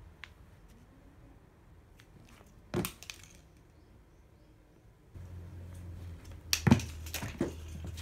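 A kitten pouncing and running on a wooden floor, paws thumping and scuffling, with a sharp knock about three seconds in and a cluster of louder knocks near the end. A low steady hum comes in about five seconds in.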